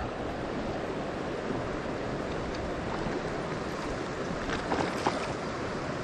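Shallow creek water running steadily over rocks, with a couple of faint brief sounds about five seconds in.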